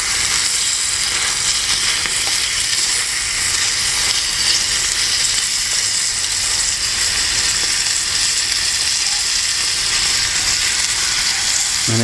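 Diced bacon sizzling steadily as it fries in a small pan over a wood fire.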